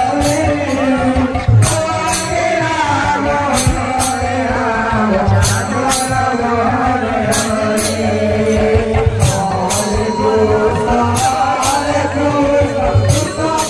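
Devotional song: voices singing over a steady low accompaniment, with a percussion stroke in pairs about every two seconds.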